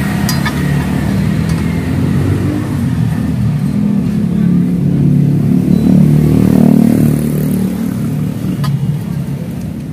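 Low vehicle engine rumble that swells to its loudest about two-thirds of the way through and then eases off, with a few faint clicks over it.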